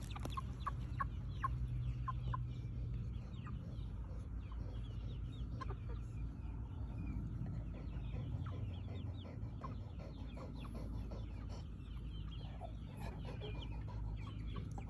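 Chickens clucking softly, many short clucks and chirps scattered throughout, over a steady low hum.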